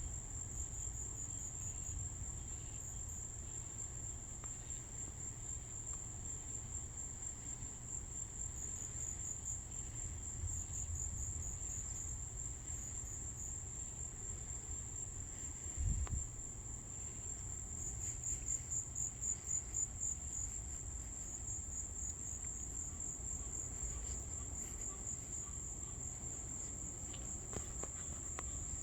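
Insects trilling steadily at a high pitch, the trill pulsing more strongly at times, over a low rumble, with a brief low thump about sixteen seconds in.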